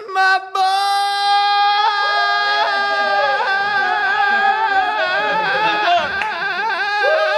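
A voice singing one long held high note, which breaks into a wide, warbling vibrato in the second half.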